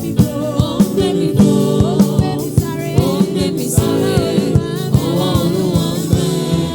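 Gospel worship music: singing over held chords with a steady percussive beat.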